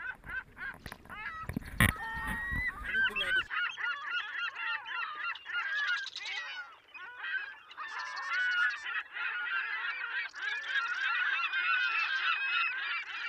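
A flock of birds calling all at once, a dense chorus of overlapping short chirping calls. A few knocks in the first few seconds.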